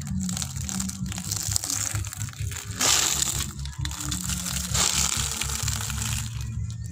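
Crisp homemade candy and fried chips in plastic bags crunching and crackling under a motorcycle's front tyre as it rolls over them. Louder bursts of crushing come about three and five seconds in.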